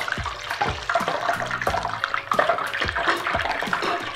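Besan-battered naan deep-frying in hot oil in a steel kadhai: steady sizzling with frequent crackling pops.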